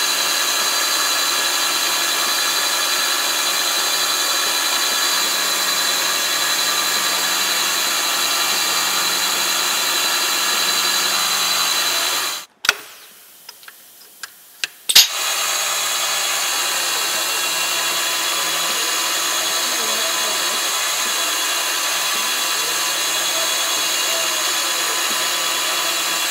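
CNC milling machine spindle running and an end mill cutting aluminium: a steady, loud whine with a high hiss. Just before halfway it stops for a couple of seconds with a few light metallic clicks of the tool holder being handled. After a sharp click it starts again and cuts steadily.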